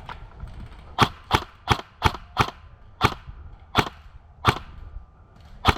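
Airsoft gun firing single shots: nine sharp cracks, five in quick succession about three a second, then four more spaced further apart.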